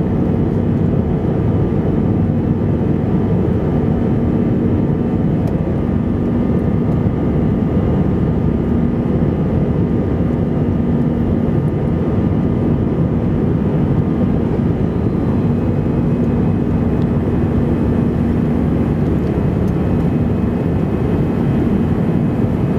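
Cabin noise inside an Airbus A321 flying after takeoff: the jet engines and airflow make a constant low rush with a steady hum running through it.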